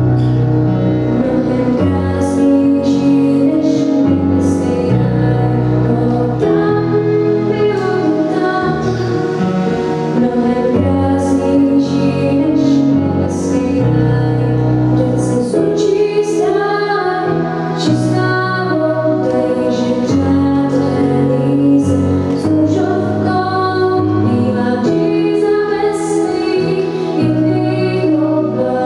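A girl singing a Czech song while accompanying herself on a Yamaha Tyros keyboard, with sustained low bass notes and chords under her voice.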